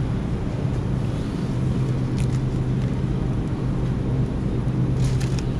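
Steady low hum of a supermarket refrigerated display case. Near the end come a few brief crinkles as a plastic package of hot dogs is handled on the shelf.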